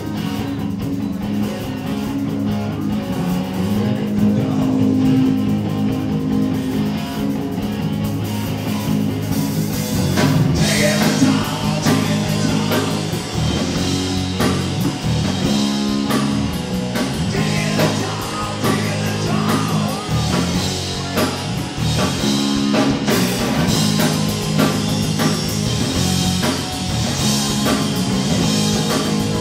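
Live punk rock band playing: distorted electric guitar over bass and a drum kit. About ten seconds in, the drums and cymbals come in harder and the band gets louder.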